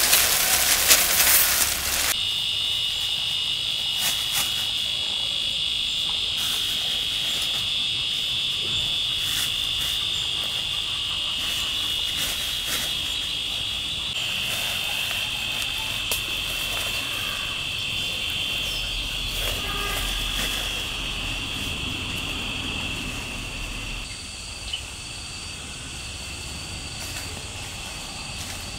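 Dry rice husks pour from a plastic bag into a bamboo basket with a rushing hiss for about two seconds. After that, a steady, high-pitched insect chorus goes on and gets a little quieter near the end.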